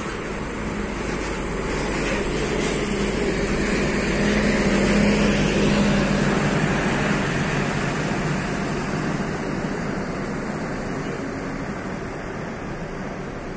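Intercity coach's diesel engine as the bus drives past close by. The engine hum grows louder to a peak about five seconds in, then fades as the coach pulls away.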